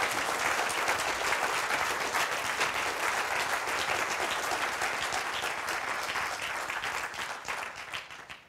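Audience applauding, many hands clapping steadily, the applause fading and dying away near the end.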